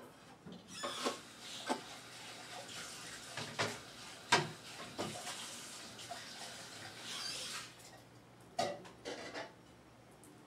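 Water running from a kitchen tap into a sink for several seconds, stopping about three-quarters of the way through. Dishes and utensils clink and knock throughout, with about eight sharp knocks in all.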